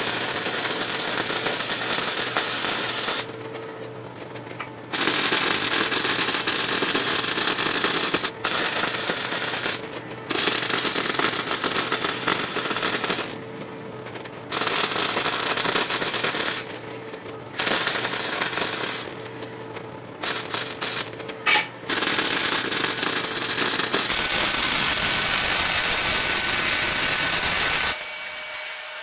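MIG welder arc crackling as wire-fed beads are laid on steel exhaust pipe and muffler. It comes in bursts of one to four seconds with short pauses between, one stitch bead after another, with a few brief stuttering starts past the middle and a longer steady run near the end.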